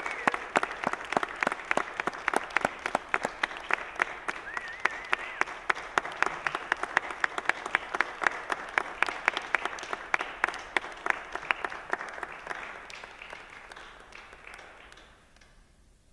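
Audience applauding, a dense patter of many hands clapping that thins out and dies away over the last few seconds.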